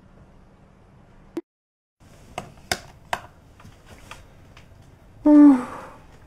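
A click and a brief cut to dead silence, then several sharp clicks and light taps. About five seconds in, a person gives a short hummed 'mm', the loudest sound.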